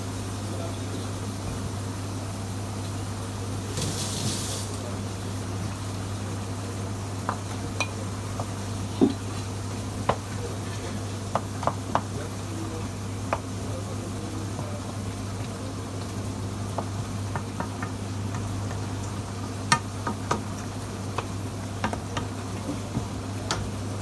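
A utensil stirring food in a cooking pot, with irregular clicks and knocks against the pot and a faint sizzle, over a steady low hum. A brief hiss comes about four seconds in.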